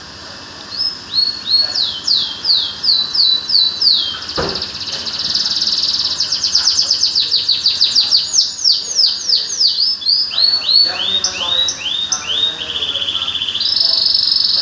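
A songbird singing a loud, varied song. It runs through series of quick, downward-sweeping whistled notes and fast trills. A single sharp click comes about four and a half seconds in.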